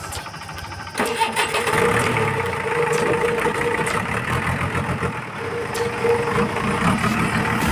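JCB backhoe loader's diesel engine starting about a second in, then running steadily with a regular beat.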